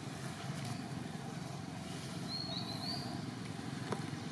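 Steady low rumble of a distant engine. A short, faint high chirp comes a little past halfway, and a small click near the end.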